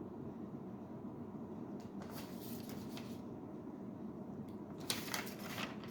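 Soft paper rustling, twice: once about two seconds in and again near the end, over a steady low room hum.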